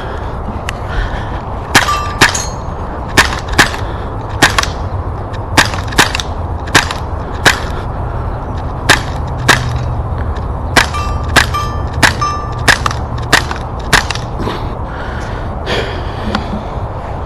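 A string of about twenty sharp air gun shots, irregularly spaced at roughly one every half second to a second, as in an exchange of fire. Some are followed by a brief ringing ping.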